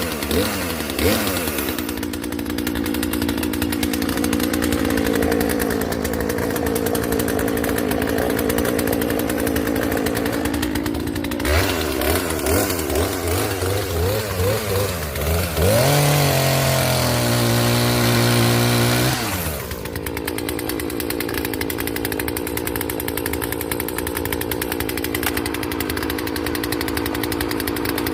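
Poulan Wild Thing 40cc two-stroke chainsaw running: blipped up and down a few times, then held at full throttle for about three and a half seconds, then dropping back to a steady idle for the last eight seconds.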